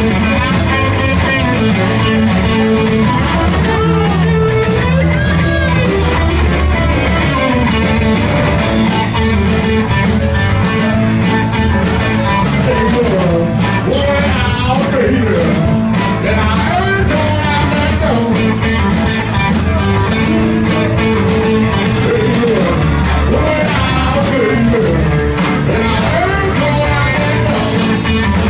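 Live southern rock and blues band playing: electric guitar, keyboard, bass and drums, with a man singing over them.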